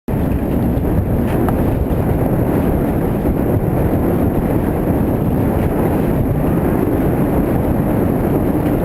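Strong wind buffeting the microphone in a steady, loud, low rumble.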